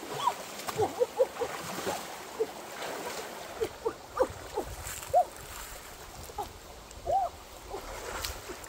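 Water sloshing and splashing around a person swimming through a shallow creek pool, with many quick bubbly plinks scattered irregularly.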